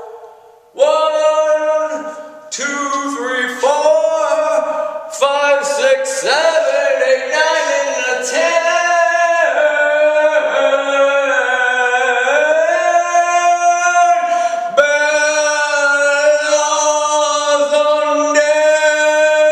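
A man singing a cappella, a run of sliding notes that settles into long held notes in the second half.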